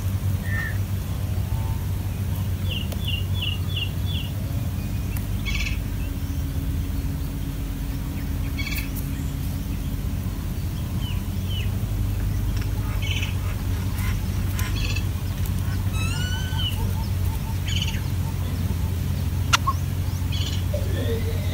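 Scattered short bird chirps and calls, including a quick run of five chirps near the start and a few rising notes later, over a steady low hum.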